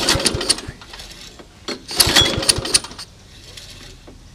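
Old Toro mower's Suzuki engine being pull-started with the choke on: two pulls of the recoil starter, each a second-long rattle of cranking, with the engine not catching.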